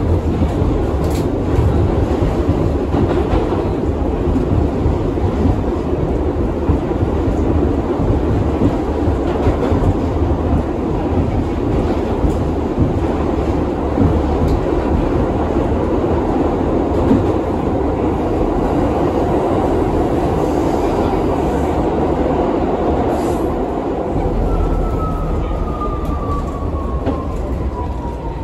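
R62A subway train running on the (1) line, heard from inside the car: a steady rumble and rattle of wheels on track with a few clicks. Near the end a whine falls in pitch as the train begins slowing for the next station.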